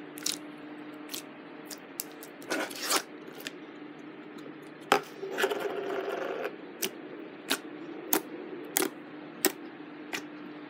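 Thin, jiggly clear-glue slime pressed and poked by fingertips, giving sharp clicks and pops as trapped air bubbles burst. There are two longer runs of crackling, about two and a half seconds in and again around five to six seconds in, over a faint steady hum.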